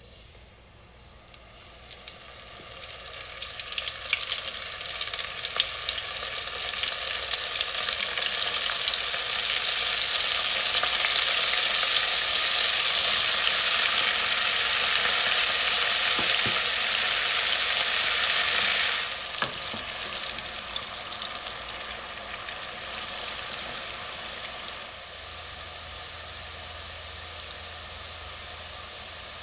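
Battered onion strings deep-frying in hot canola oil: a dense bubbling sizzle with crackles that builds over the first several seconds as more strings go into the oil. It drops off sharply about two-thirds of the way through, then settles to a softer, steady sizzle.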